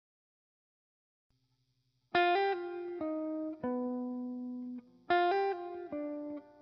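Silence for about two seconds, then background music starts: a short plucked-guitar melody of a few notes, played again about three seconds later.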